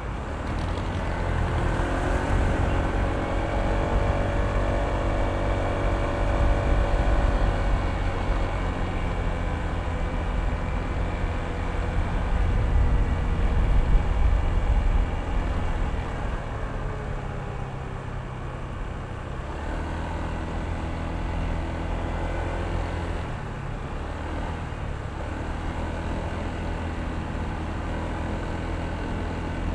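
Honda ADV160 scooter's single-cylinder engine running on the move, its pitch climbing as it accelerates over the first several seconds and staying louder until about fifteen seconds in, then running steadier, with wind rumble on the microphone.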